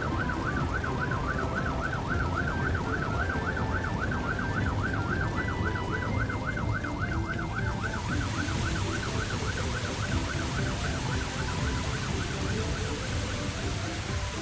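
Cartoon fire engine siren sounding a rapid, regular warble. About halfway through, the hiss of its hose spraying water joins in over a steady low rumble.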